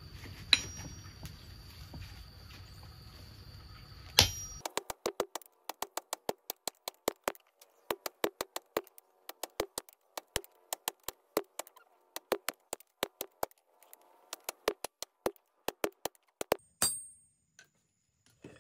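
Hammer blows on a hand-held forging tool set on red-hot axe steel over an anvil: a quick series of sharp metallic clinks, about three a second, with one heavier blow near the end. The blows follow a few seconds of steady noise.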